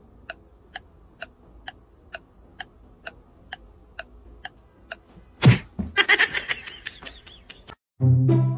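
Ticking sound effect, evenly spaced at about two ticks a second for about five seconds, then a low thump and a second and a half of high chirping squeaks; music starts just before the end.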